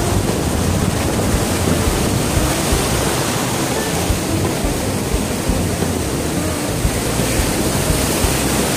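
Sea surf breaking close by on a sandy beach: waves tumbling into foam with a loud, steady rushing noise.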